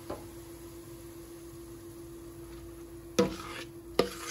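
Masa sizzling faintly in hot oil in a pot, over a low steady hum. About three seconds in, a spoon knocks and scrapes against the pot as stirring begins, with a second knock a moment later.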